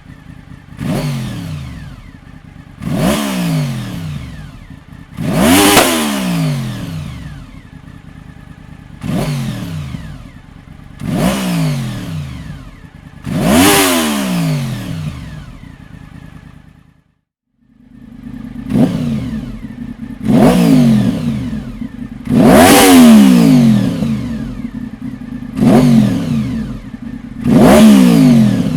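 Honda VFR750 RC36's V4 engine, breathing through an aftermarket Dominator silencer, revved in about a dozen sharp throttle blips, each rising fast and falling back to idle. It cuts out briefly about 17 seconds in and comes back louder, with a stronger idle between the blips.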